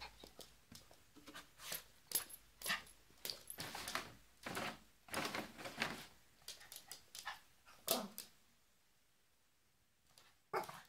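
Small dog making a string of short whimpers and yips, some drawn out into brief whines, then falling quiet about eight seconds in.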